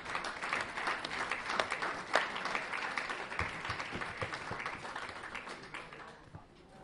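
Audience applauding: many hands clapping at once, strongest in the first few seconds and dying away near the end.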